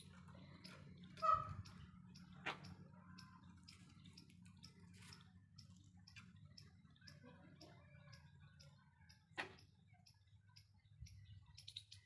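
Faint aviary sounds: a low steady hum with scattered small clicks and taps, a short bird call about a second in, and two sharper knocks, one early and one near the end.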